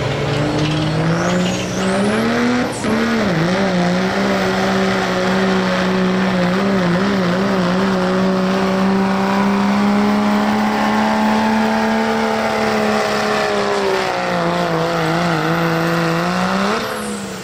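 Dodge Ram pickup's Cummins inline-six turbodiesel pulling a sled at full throttle. The engine revs up over the first couple of seconds, then holds a steady high drone under load with brief wobbles as the truck bogs. It sags late in the run, flares once more and drops off near the end as the pull finishes.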